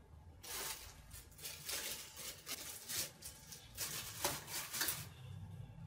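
Clear plastic packaging rustling and crinkling in irregular bursts as a boxed figure's parts are unwrapped by hand. It dies down about five seconds in.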